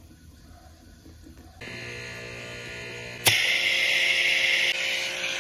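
Pressure washer motor starting about a second and a half in and running with a steady hum. About two seconds later there is a sharp click as the trigger is pulled, and the water jet hisses loudly against the side of a car.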